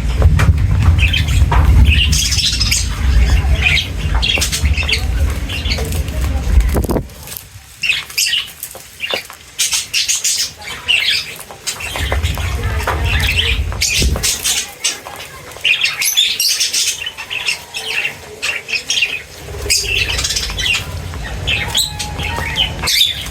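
Birds chirping and squawking in many short, overlapping calls. A loud low rumble runs under them for the first seven seconds and returns briefly about halfway through.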